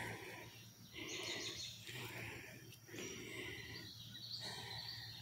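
A woman breathing hard, about one heavy breath a second. She is winded from climbing a steep hill, and she links this to her smoking.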